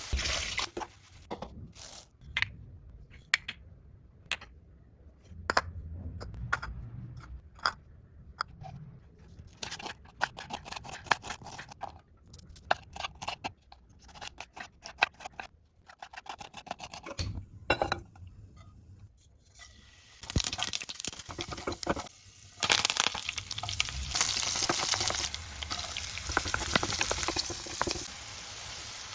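Kitchen preparation sounds: a run of clicks, knocks and rapid tapping. About twenty seconds in, a steady sizzle of food frying in hot oil in a pan takes over.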